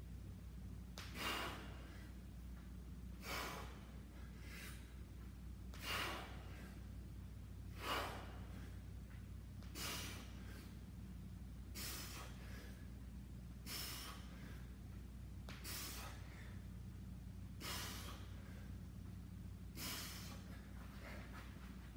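A man's heavy breathing during kettlebell sumo squats: a short, sharp breath with each rep, about one every two seconds, over a steady low hum.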